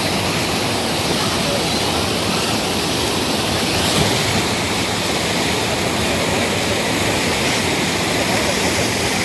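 Mountain stream water rushing over a small weir, a loud, steady rush with no breaks.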